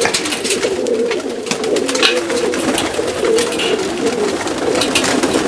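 Several Macedonian Donek pigeons cooing at once, a continuous overlapping warble of low coos, with scattered sharp clicks and scratches over it.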